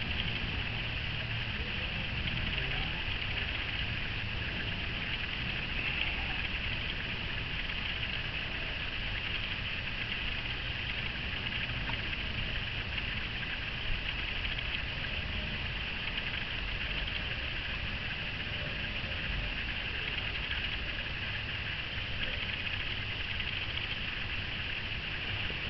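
Steady outdoor ambience: an even, high insect chorus with a low rumble beneath it and no distinct events.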